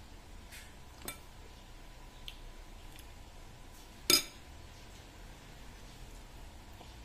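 A metal spoon clinking against a ceramic bowl and plate at a meal: a light clink about a second in, a faint one a little after two seconds, and a louder ringing clink about four seconds in.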